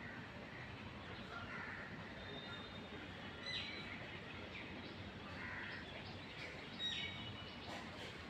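Birds calling: scattered short chirps and two sharp calls that sweep quickly downward in pitch, over a steady background of outdoor noise.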